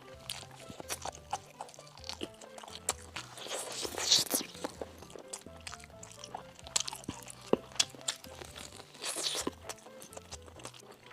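Close-miked eating: crunchy bites and chewing, many sharp mouth clicks, with louder crunches about four seconds in and near nine seconds, over background music.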